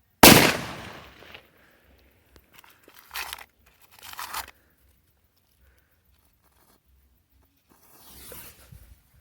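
A firework goes off with a single loud, sharp bang about a quarter second in, and the sound dies away over about a second. Two shorter, softer crackling noises follow a few seconds later, and a fainter one comes near the end.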